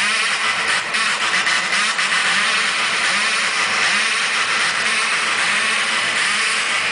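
Loud hardstyle dance music over a big arena sound system, recorded from inside the crowd: distorted and thin in the bass, with an even, repeating beat.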